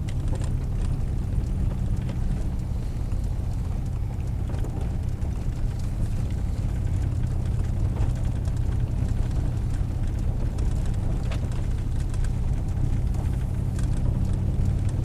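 Truck driving on a rough dirt mountain road, heard inside the cab: a steady engine and road drone with scattered small knocks and rattles.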